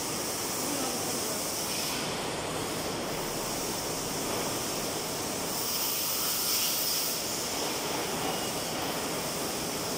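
Steady, even hissing workshop noise that does not rise or fall, with no distinct welding strikes or clanks.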